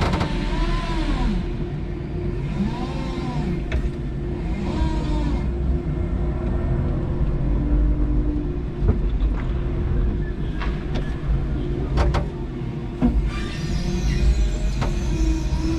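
5-ton electric forklift driving with a load: a steady hum and rumble, with its electric drive whining up and down in pitch several times. A few sharp knocks come about nine to twelve seconds in.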